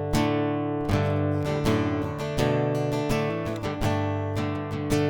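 Fender FA-345CE acoustic-electric guitar strumming chords, heard through its piezo under-saddle pickup, with the bass rolled back and the treble raised slightly. The chords are struck about every three quarters of a second and ring on between strums.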